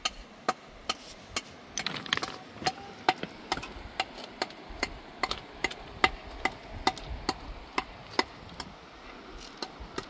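Hammer blows struck at a steady pace, about two a second, stopping about eight seconds in with one last blow near the end.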